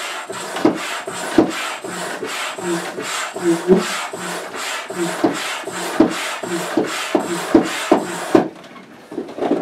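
Upright hand pump worked in quick, even strokes, a rasping rush of air about three times a second, pumping up the floor chamber of an Itiwit X500 inflatable kayak. The pumping stops about eight seconds in.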